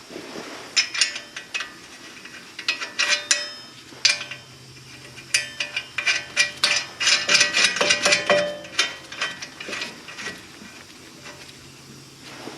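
Metal tools and parts being handled: irregular clinks and rattles with short metallic ringing, busiest in a dense run in the middle.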